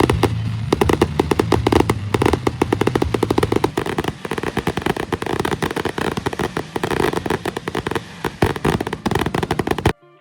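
Fireworks going off in rapid succession, a dense stream of crackling pops and bangs that cuts off suddenly near the end.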